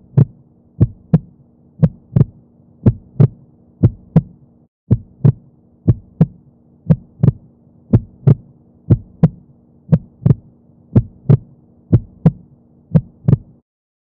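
Heartbeat sound effect: paired low thumps (lub-dub), about one double beat a second, over a faint steady hum.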